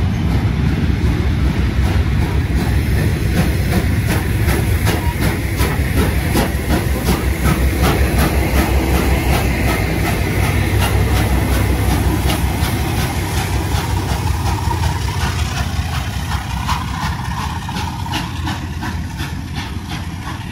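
A steam-hauled train of tank wagons rolling past at close range, a steady rumble with a regular clicking of wheels over rail joints and some steam hiss, fading away over the last few seconds as the train departs.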